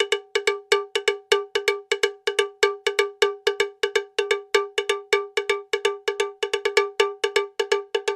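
Cowbell struck over and over, about five clanks a second in a slightly uneven rhythm, each ringing briefly at the same pitch.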